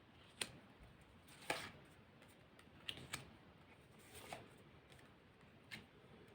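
Fortune-telling cards being handled and laid out on a table: about six soft, separate clicks and taps over near silence.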